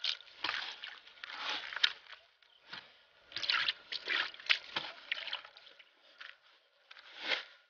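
A hand stirring, scooping and squeezing damp, coarse-grained homemade groundbait of corn meal, breadcrumbs and oat flakes in a plastic bucket, giving a string of irregular gritty rustles and squishes as the mix is moistened and worked.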